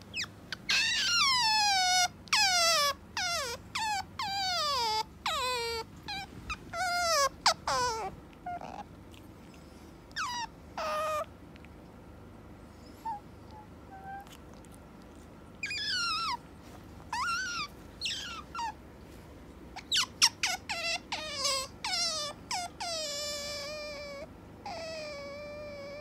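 Asian small-clawed otter squealing again and again in high-pitched calls that each slide down in pitch. There is a long run of calls, a pause of a few seconds with only faint peeps, then another run whose last calls are held steadier and lower. This is the otter's insistent wake-up calling at its sleeping owner, which does not stop when it is pushed away.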